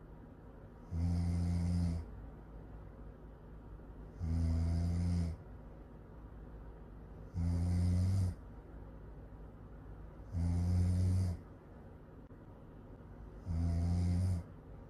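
Really loud snoring: five rough snores of about a second each, evenly spaced about three seconds apart, with quieter breathing in between.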